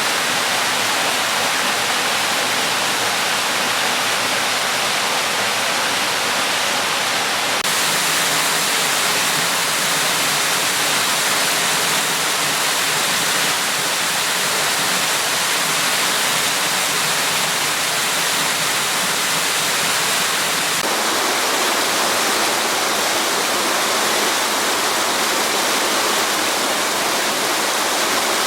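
Waterfall on the Neda River, water pouring and splashing in a steady, loud rush.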